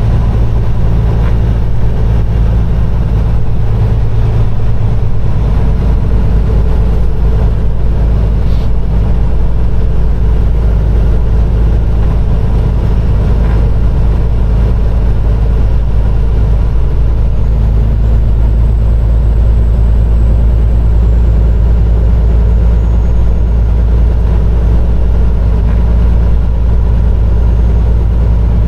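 Peterbilt 389 semi truck's diesel engine and drivetrain running steadily while driving, a loud, even low drone.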